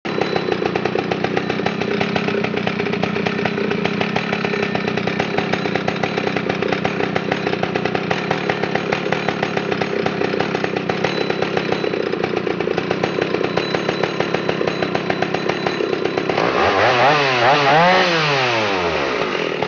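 Stihl 056 Magnum chainsaw, an 81cc two-stroke, running steadily at high speed, then revved up and down twice near the end before the engine note drops away.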